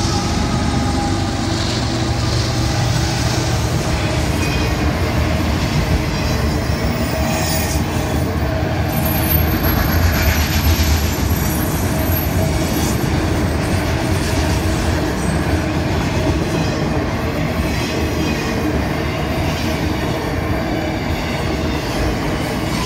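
Florida East Coast Railway freight train rolling past at close range: a locomotive, then a long string of autorack cars, with a steady, loud rumble and rattle of wheels on the rails.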